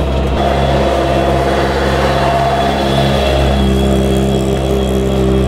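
Toyota-engined Ford Escort Mark II rally car's engine held at steady high revs while the car spins on the spot with its rear wheels spinning.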